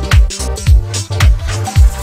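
Electronic dance music with a kick drum about twice a second and synth chords.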